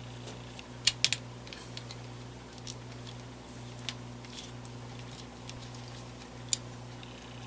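Sharp little clicks and taps of small plastic and metal fan parts being handled: three close together about a second in, one more near the end, and fainter ticks between, over a steady low hum.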